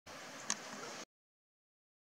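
Faint steady hiss of background noise with a single short click about half a second in, cut off abruptly after about a second, followed by complete silence.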